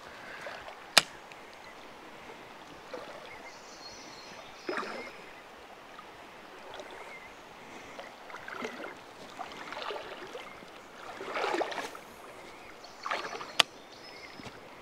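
Short splashes and sloshes of river water, with a sharp click about a second in and another near the end, as an ultralight spinning rod and reel is cast and worked along the bank.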